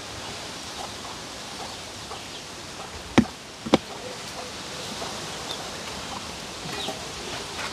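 A metal serving spoon knocks twice against a steel cooking pot, about half a second apart, as rice and peas are dished out of it.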